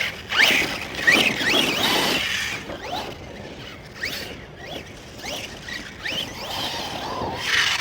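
Electric motor of an Arrma Outcast 1/8 RC stunt truck, running on a 4S battery, whining in repeated rising and falling glides as the throttle is pulsed, loudest in the first two seconds.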